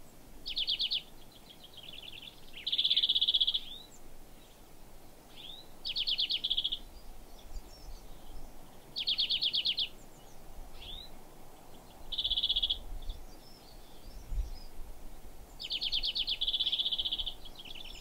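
European greenfinch song: six bursts of fast trilling, pulsating notes, each lasting about a second, spaced a few seconds apart.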